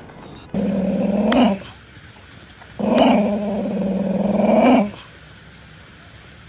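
A dog vocalising in two long, drawn-out calls, the second about twice as long as the first, each rising in pitch at its end. A third call begins right at the end.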